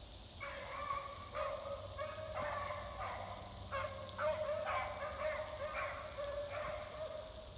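Beagles baying as they run a rabbit's scent: a dozen or so short bawls in quick succession.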